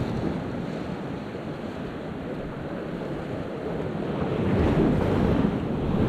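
Ocean surf washing against rocks, with wind buffeting the microphone; the wash swells louder a little past the middle.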